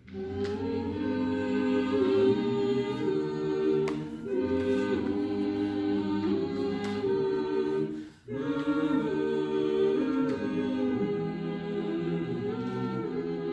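Choir singing unaccompanied, in slow held chords, with a brief pause about eight seconds in.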